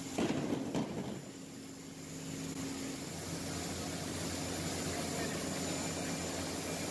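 Automatic food-processing band saw running steadily, a hum with a thin high whine as the blade cuts through frozen product. A brief loud clatter comes about half a second in.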